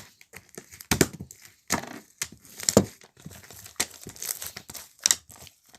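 Irregular crinkling and crumpling of something being handled, a string of sharp crackles, the loudest about a second in and just before three seconds.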